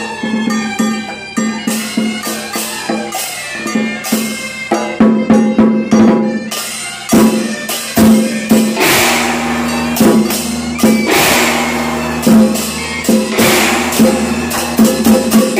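Chinese gong-and-drum ensemble playing: a barrel drum beaten in rapid strokes, with clashing hand cymbals and ringing gongs over a held reed-horn melody. The cymbal crashes grow heavier about halfway through.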